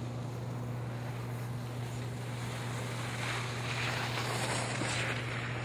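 A steady low hum under a rushing noise; the rushing swells louder about three seconds in and eases off again near the end.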